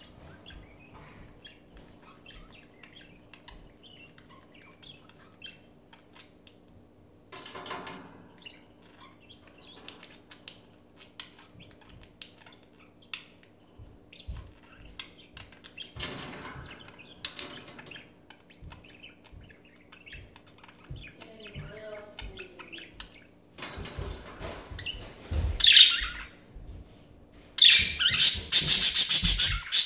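Pet budgerigars chattering softly with scattered chirps and small ticks, breaking into louder, denser chirping near the end. A faint steady hum runs underneath.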